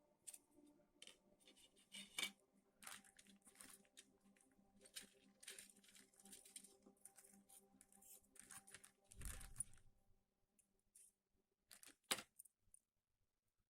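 Plastic model kit packaging being handled: a run of short rustles, crinkles and scrapes, with a low bump about nine seconds in and a sharp click near the end.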